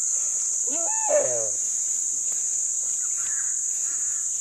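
A drawn-out animal cry about a second in, rising then falling in pitch, with fainter short calls a couple of seconds later, over a steady high insect hum.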